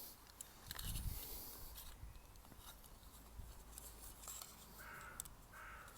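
Faint rubbing and light clicks of hands working an indicator's plastic housing and wiring.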